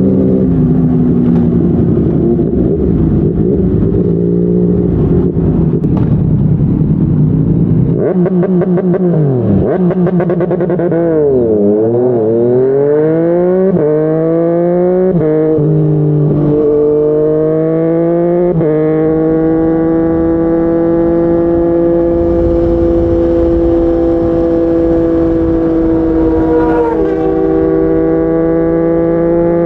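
Yamaha MT-09's inline three-cylinder engine through a Yoshimura R55 slip-on exhaust, heard from the rider with wind rushing over the microphone. The revs fall steeply about a third of the way in, then the engine pulls up through four quick upshifts, each a sudden drop in pitch, and settles into a steady cruising note that slowly climbs.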